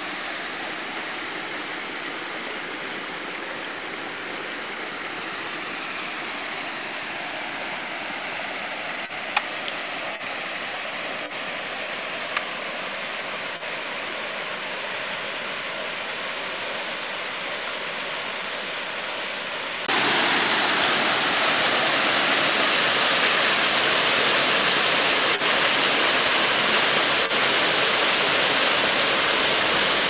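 Steady rush of a rocky creek's running water, with two brief clicks in the first half. About two-thirds of the way through it cuts suddenly to the louder, steady rush of a small waterfall pouring into a pool.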